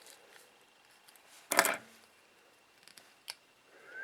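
Small handling noises on a toy-sized drone with a screwdriver: a brief scraping clatter about a second and a half in, then a single sharp click a little over three seconds in, with faint ticks between.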